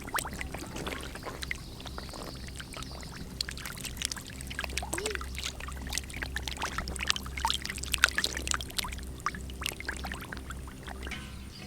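Shallow water splashing and sloshing in many short, irregular strokes, as when hands work through water catching fish, over a steady low hum.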